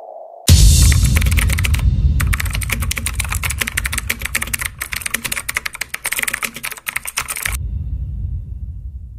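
Fast, dense clicking over a deep rumble, starting abruptly about half a second in; the clicks stop about seven and a half seconds in, and the rumble then fades away.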